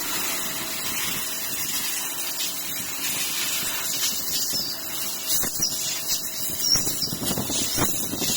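CNC machining center running while cutting a part: a steady hiss with a faint steady tone underneath, broken by a few sharp clicks in the second half.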